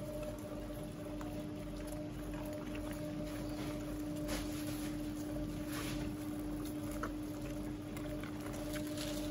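A steady mechanical hum holding one pitch, over a low rumble, with a few faint light clicks and taps.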